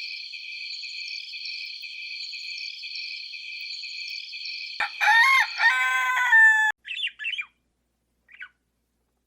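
Birds chirping in a steady high chorus, then a rooster crows loudly about five seconds in, followed by a few faint chirps.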